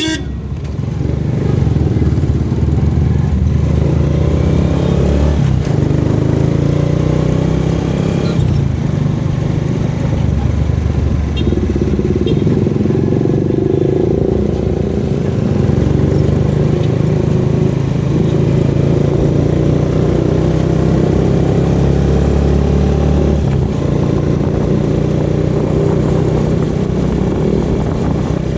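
Motor vehicle engine running steadily while on the move, its pitch drifting up and down slowly, with road noise.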